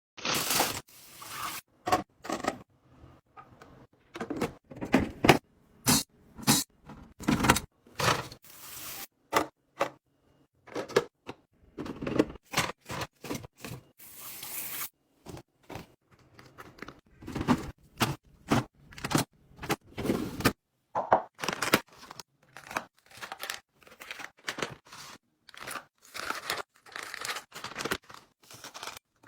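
Food packaging being unpacked and handled: a quick, uneven run of short crinkles, tears and clacks, with brief pauses between them.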